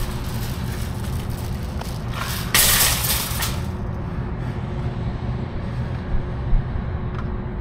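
Truck engine idling with a steady low rumble and a faint hum, broken about two and a half seconds in by a loud hiss lasting about a second.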